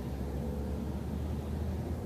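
Steady low rumble of a city bus's engine and running gear, heard from inside the bus, with a faint short whine about half a second in.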